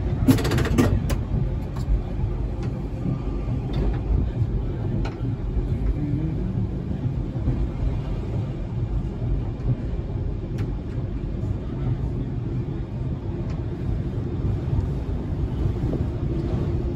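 W class tram running along the track, heard from on board: a steady low rumble with scattered sharp clicks and knocks. A quick run of sharp knocks sounds in the first second.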